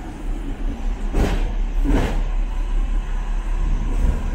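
Hong Kong tram running along the street, with a steady low rumble and two short clacks, about a second in and again near two seconds in.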